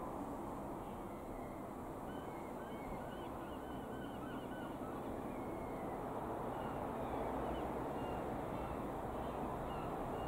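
Distant steady drone of a Cessna U206F Stationair's single piston engine high overhead, with birds calling in many short chirps over it.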